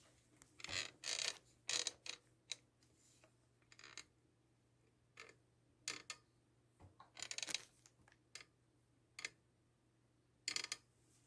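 Faint, irregular short clicks and brief rustles, about a dozen with gaps of roughly half a second to a second between them; the loudest come about a second in, around seven seconds in, and near the end.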